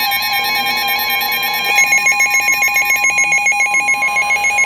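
Emergency Alert System alert tones for a special marine warning: a steady two-tone alarm, joined about two seconds in by a rapidly pulsing, warbling tone.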